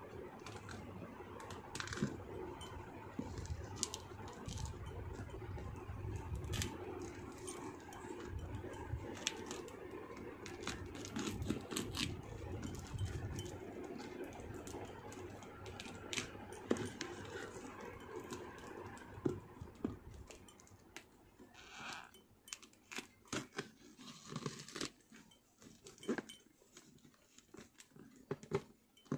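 Hands working a small parcel wrapped in brown paper and tape: paper crinkling, tape tearing and many scattered clicks. A low rumble runs under the first twenty seconds or so, then drops away.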